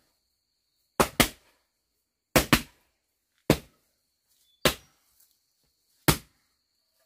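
Wooden plank knocked down repeatedly onto the packed-earth floor: five sharp wooden knocks a little over a second apart, the first two doubled.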